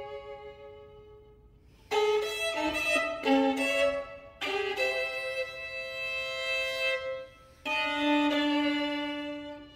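Solo violin playing contemporary classical music: a soft held note dies away, then after a short pause come sudden loud, quick notes, followed by two long held notes with a brief break between them.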